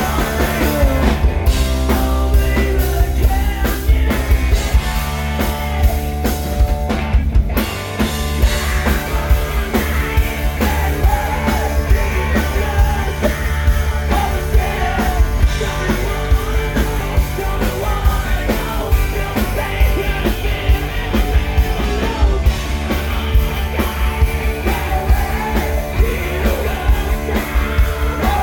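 Loud hard-rock song with electric guitars, bass and drums, and a male voice singing through much of it.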